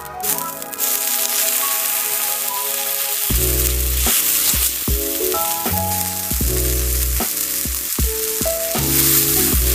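Food sizzling in a frying pan, a steady hiss, under background music whose bass and melody notes come in about three seconds in.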